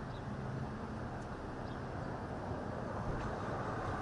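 Steady outdoor ambient noise: an even low rumble with a faint hum underneath, slightly louder toward the end.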